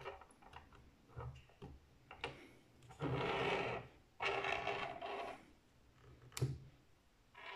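Quiet handling of a Canon DSLR on a wooden desk: a few small clicks as the remote cable's jack goes into the camera's side port, two rubbing scrapes of about a second each as the camera is turned round, and a sharp click near the end.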